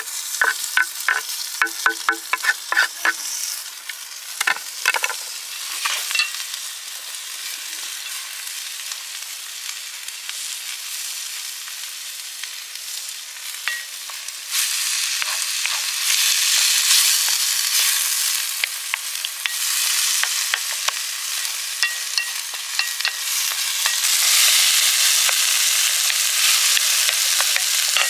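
Chopped tomatoes and green peppers sizzling in a pan over a wood fire, with a run of sharp knife taps and scrapes against the board and pan in the first few seconds as the tomatoes go in. The sizzle gets louder about halfway through while the vegetables are stirred with a wooden spoon.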